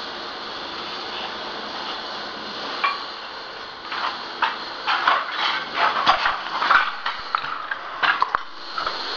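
Footsteps crunching over broken floor-tile debris, the shards clinking and scraping in quick irregular clicks that begin about four seconds in.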